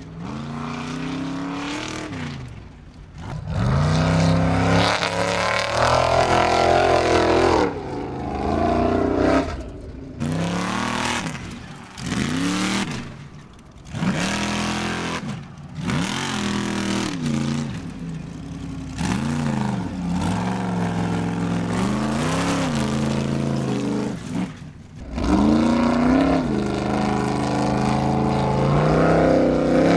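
Formula Offroad buggy's engine revving hard, its pitch climbing and falling over and over as the throttle is worked on the climb. The sound breaks off abruptly several times and starts again.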